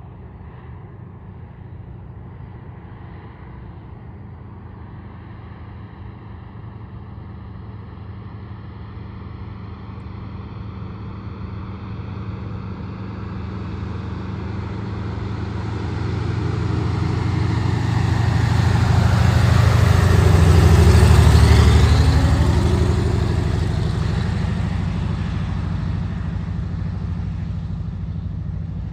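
Single-engine piston floatplane's engine and propeller droning on a low landing approach, growing steadily louder to a peak about two-thirds of the way through as it passes close, its pitch dropping as it goes by, then easing off a little.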